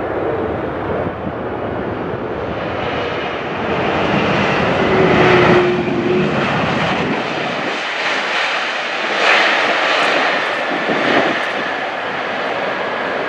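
Jet engines of a United Airlines twin-engine widebody airliner making a loud, steady roar as it touches down and rolls out along the runway. The roar swells twice, about four to six seconds in and again near ten seconds.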